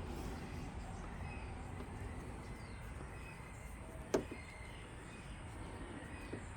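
Low steady background noise with a single sharp click about four seconds in.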